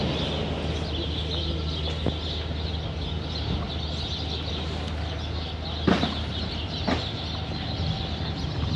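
Outdoor city-street background: a steady low hum under a dense high chatter of birds in the trees, with two sharp knocks about six seconds in and again a second later.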